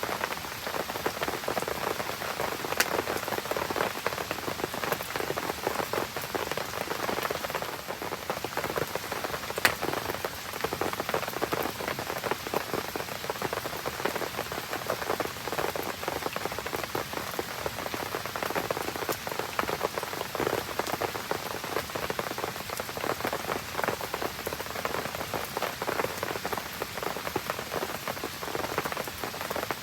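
Steady rain pattering on a campfire and the ground around it, with the fire crackling underneath and a couple of sharp pops, about three and ten seconds in.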